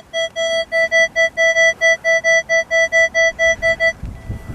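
Metal detector sounding on a buried metal target: a rapid run of identical electronic beeps at one steady pitch, about five a second, stopping about a second before the end, followed by a dull low knock.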